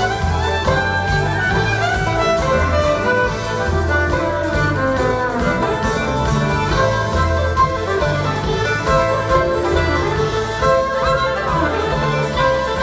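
Live string band playing: a bowed fiddle leads over guitar, bass and drums, with a steady beat.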